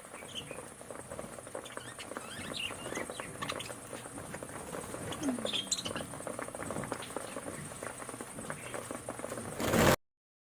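Budgerigars pecking and cracking grain on a feeding tray: a dense, steady patter of small clicks, with a few faint chirps. A brief louder noise comes just before the sound cuts off near the end.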